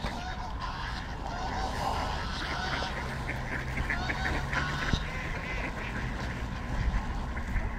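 A flock of mallard ducks quacking over and over in short, overlapping calls, with Canada geese honking among them.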